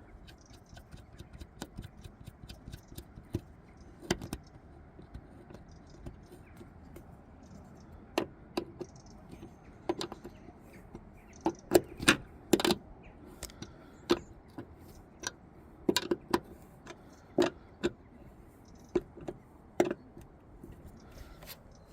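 Irregular sharp metallic clicks and taps of hand tools and hardware as the mounting nut is fitted and tightened on a vacuum wiper motor, the clicks coming thicker in the second half.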